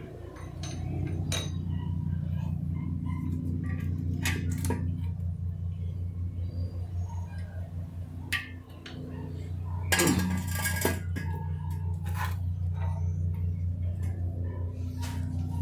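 Metal parts and tools clinking and knocking in repeated short clicks over a steady low hum, with one louder scraping clatter about ten seconds in.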